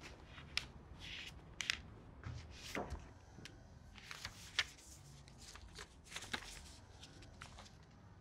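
Sheets of paper being leafed through and handled: faint, irregular rustles and page flicks as a document is turned over in a folder.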